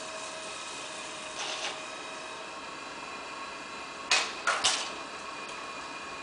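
Electric potter's wheel running with a steady motor hum. A soft rush of noise comes about a second and a half in, and three short, louder bursts of hiss come between four and five seconds in.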